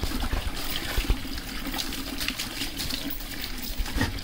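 Water poured from a mug over a wet Labrador's back, trickling and splashing onto a concrete floor, with many small splashes and drips.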